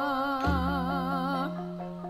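Javanese gamelan (karawitan) music with a woman's voice singing a long wavering note. About half a second in, a deep low stroke, a large gong, starts and rings on under it. The voice stops about halfway through while the bronze instruments carry on.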